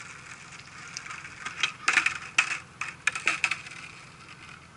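A rapid, irregular cluster of sharp clicks and clacks, beginning about a second and a half in and lasting about two seconds.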